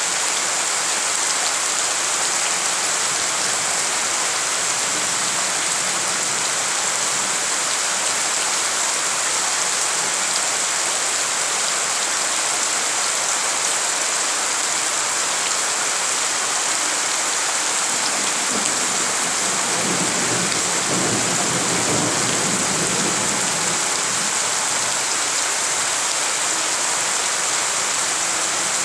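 Heavy rain falling steadily on a wet, puddled courtyard, a dense even hiss of drops on water and ground. A low rumble rises briefly about twenty seconds in.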